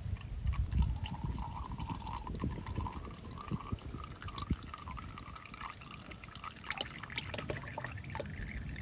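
Used engine oil trickling and dripping into a drain pan from the just-removed oil filter and its mount, with many small scattered drips.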